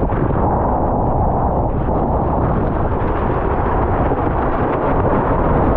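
Strong wind buffeting the microphone: a loud, steady, low rumbling noise.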